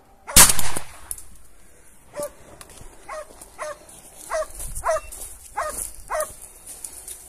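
A single loud gunshot about half a second in, then a hunting tracking dog barking in short, repeated barks at the cornered wild boar.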